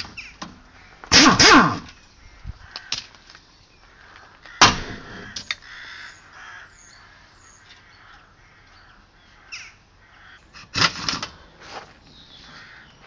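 Loud, harsh bird calls, a pair about a second in, another near five seconds and a quick cluster near eleven seconds.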